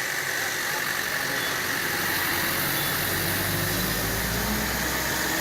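A vehicle engine idling, its low steady hum growing stronger about two seconds in, over the continuous rushing of the flooded river.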